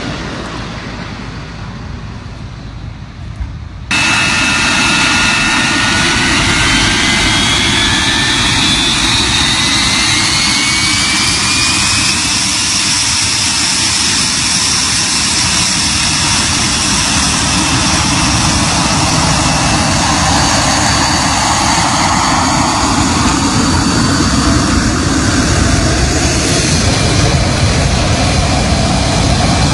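Fighter jet engine running loud on the ground. About four seconds in, the level jumps suddenly to a steady roar, and a high whine then rises in pitch over several seconds.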